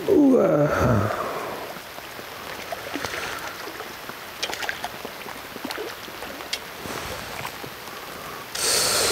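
Rain falling steadily, with scattered drip ticks. A loud falling whoosh opens it, and a short hiss comes near the end.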